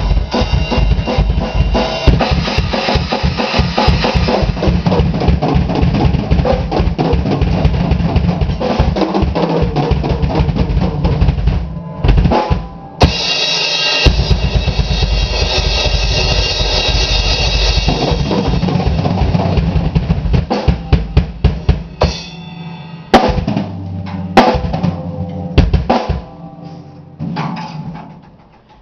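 Improvised solo on a PDP X7 maple drum kit: rapid bass drum, snare and tom hits with cymbals, a short break about twelve seconds in, then a stretch of loud cymbal wash over the drums. Near the end it thins to a few scattered hits that ring out.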